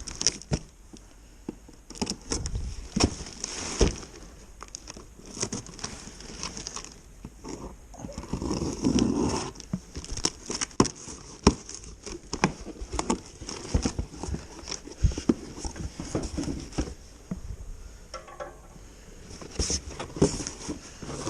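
Irregular clicks, knocks and rustling as mini bike parts and their packaging are handled and set down.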